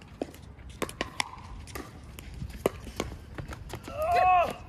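Pickleball rally: irregular sharp pops of paddles striking the hollow plastic ball, with the ball bouncing on the hard court. Near the end a player lets out a loud shout, the loudest sound here.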